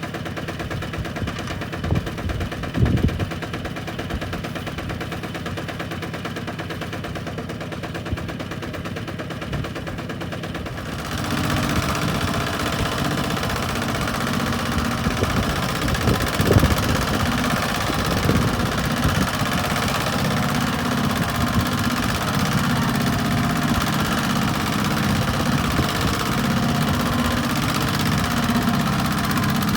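Farm tractor's diesel engine running with a rapid, chugging beat. About eleven seconds in it gets louder and harsher, as if revved or put under load.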